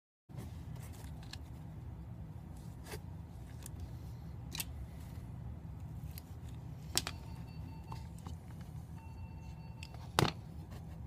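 Small spring clamps being handled and taken off the phone's glass, giving scattered sharp clicks, the loudest about 7 and 10 seconds in, over a steady low hum.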